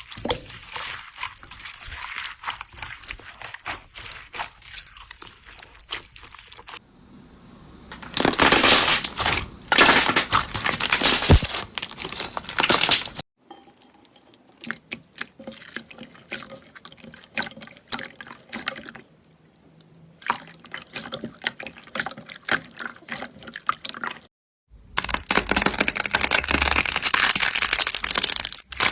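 Slime being squeezed, pressed and stretched by hand, giving dense clicking, popping and crackling, in several short clips that cut off suddenly, some much louder than others.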